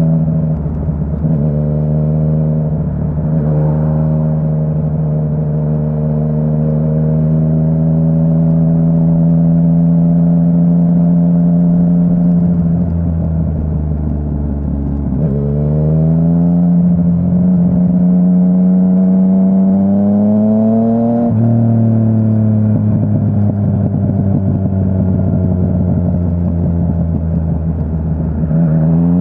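Yamaha Tracer 900's 847 cc inline-three engine through a full aftermarket exhaust, heard while riding. It runs at steady revs for a stretch, revs rise through the middle, drop suddenly at an upshift about 21 seconds in, then climb quickly again near the end under acceleration.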